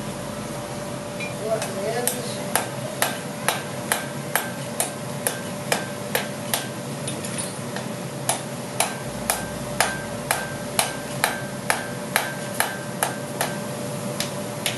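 Hand hammer striking a red-hot wrought-iron chain link on an anvil block as the link is forged, in a steady run of ringing blows a little over two a second. The blows start about two seconds in and pause briefly midway, over a steady low hum.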